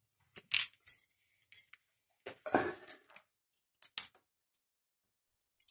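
Scattered short clicks and knocks of kitchen items being handled on a worktop, the busiest and loudest cluster about two and a half seconds in.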